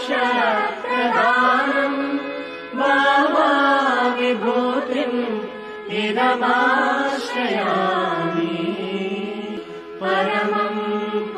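A voice singing a devotional chant in a Carnatic style, in long melodic phrases with short breaks between them.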